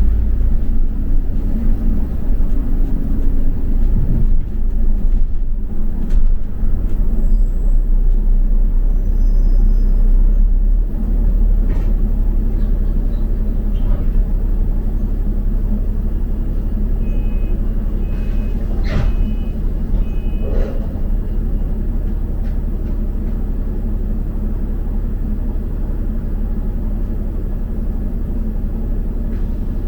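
Double-decker bus running, heard from inside as a steady low engine and road rumble. About two-thirds of the way through there are a few short high beeps and a sharp knock.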